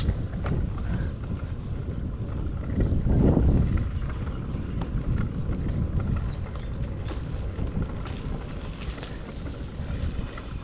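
Wind buffeting the microphone of a moving bicycle, a steady low rumble that swells about three seconds in, with faint ticks and rattles of the ride above it.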